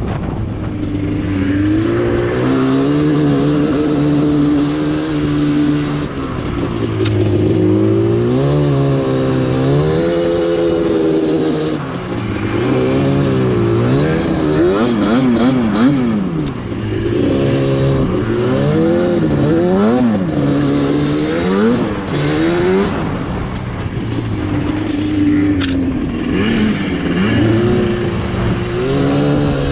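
Yamaha Banshee ATV's twin-cylinder two-stroke engine being ridden, revving up and dropping off again and again as the throttle is worked through the gears.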